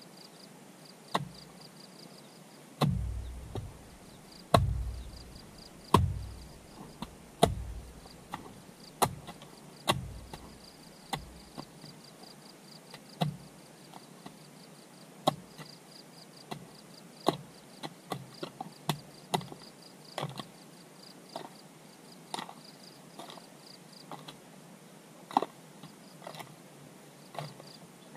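Repeated strikes of a hand tool working, roughly one a second and unevenly spaced, with heavy dull thuds in the first half and lighter, sharper knocks later. Insects chirp steadily in the background.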